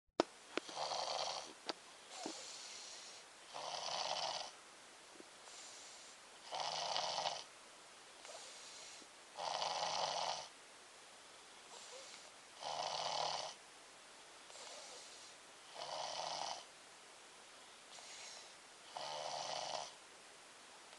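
Slow, regular snoring: one loud snore about every three seconds, with a softer breath between each. A few sharp clicks in the first two seconds.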